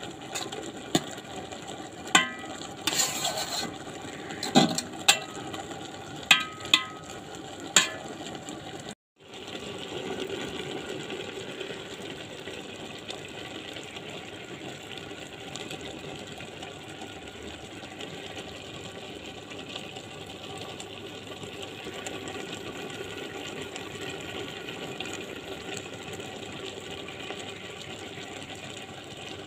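A cooking spoon or spatula clinks and scrapes against the pan of taro stolons, a few sharp knocks in the first eight seconds. After a brief dropout, the steaming pan gives a steady, even hiss with a low hum underneath as the dish cooks on the stove.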